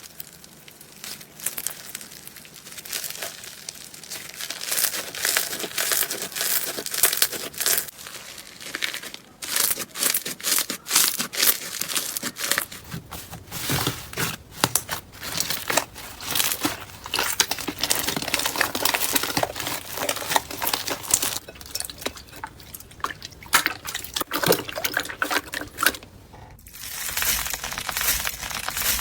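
Slime being squeezed, stretched and poked by hand, giving a dense run of small sticky clicks and crackles, with a short pause near the end.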